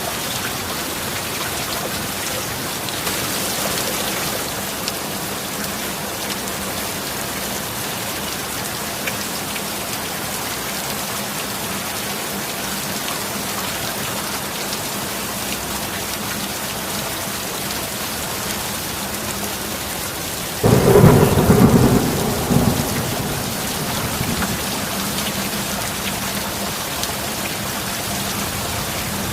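Steady heavy rainfall hissing throughout, with a faint steady low hum under it. About 21 seconds in, a sudden loud thunderclap breaks out and rumbles away over roughly three seconds.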